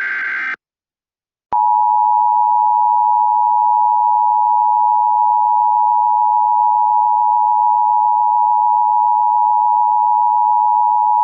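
Emergency Alert System attention signal: two steady tones sounded together just under 1 kHz (the standard 853 and 960 Hz pair), starting about a second and a half in after a brief silence and holding for nearly ten seconds before cutting off. It is preceded by the tail of a burst of the alert's digital header data tones, which ends about half a second in.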